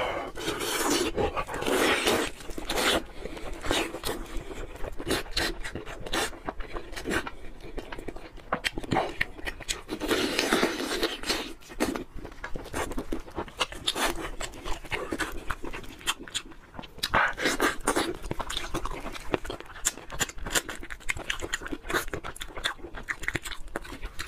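Close-miked eating of steamed chicken: wet chewing and lip-smacking in irregular bursts, with the soft tearing of chicken skin and meat pulled apart by gloved hands.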